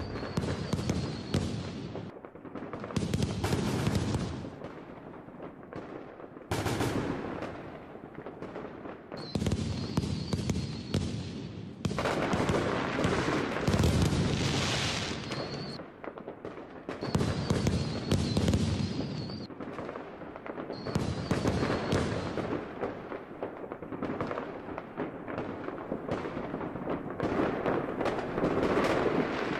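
Large fireworks display: shells booming and crackling densely in loud waves a few seconds long, with brief lulls between them. A high warbling whistle rises over the bursts several times.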